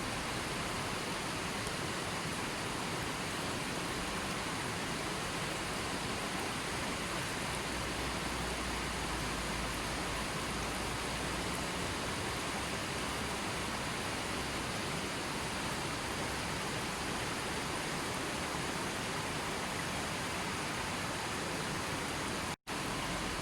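Steady, even rushing of water, with no change in level; it cuts out for a split second near the end.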